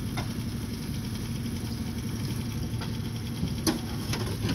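Small outboard motor on an aluminium jon boat running steadily at idle, with a few short, sharp knocks over it.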